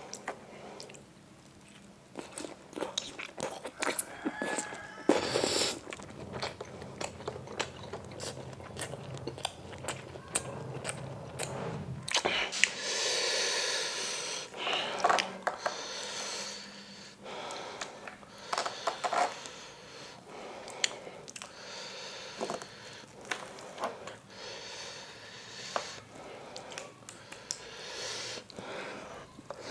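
Close-up eating sounds of beef meatballs in spicy broth: chewing and biting, with repeated sharp clicks of a metal fork and knife against the tray as the meatballs are cut.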